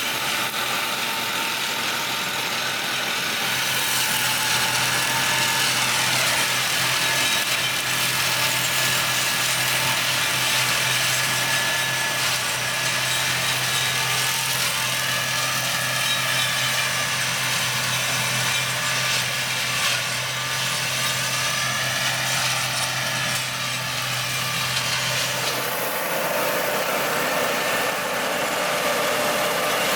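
Tractor-driven flail mower running: a steady engine sound with a dense hiss over it, and a steady low hum that cuts off suddenly about 25 seconds in.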